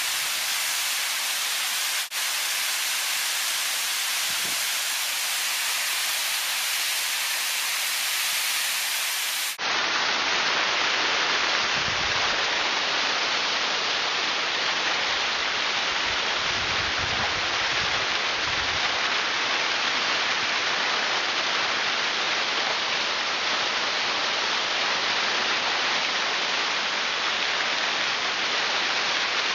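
Snowmelt mountain waterfall rushing steadily. About ten seconds in the sound jumps to close range, louder and fuller, as the water pours over a rappeller and splashes onto the camera, with a few low thuds.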